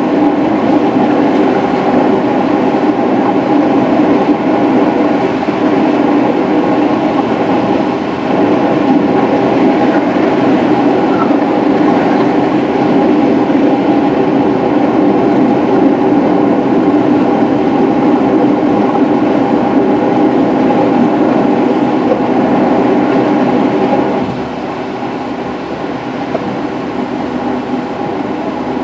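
Steady road and engine noise of a car cruising at highway speed, heard from inside the cabin as a constant drone with tyre rumble. It drops a little in level about 24 seconds in.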